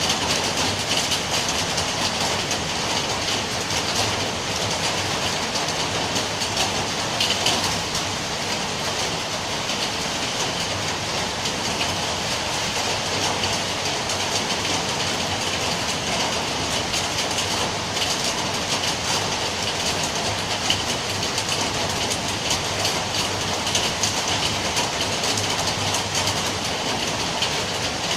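Steady rain falling: an even, unbroken hiss dotted with countless small ticks of drops landing.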